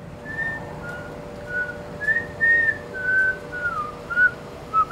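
A person whistling a slow tune, a string of short held notes stepping up and down, with a faint steady hum underneath.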